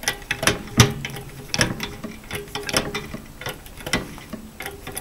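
Hydraulic floor jack being set under a tractor frame: irregular metal clicks and clanks, a few a second.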